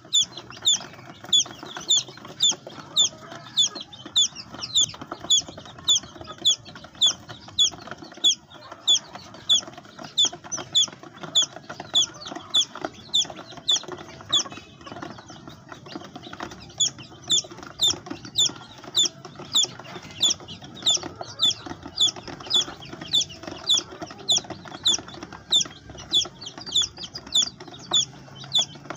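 A baby chick peeping loudly and without let-up, about two high, downward-sliding peeps a second, with a brief pause about halfway through. The loud, insistent falling peep is the call a chick gives when it is on its own and separated from hen and brood.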